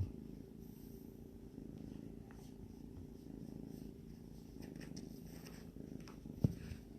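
Kitten purring steadily close to the microphone, a low continuous rumble, with one brief knock about six and a half seconds in.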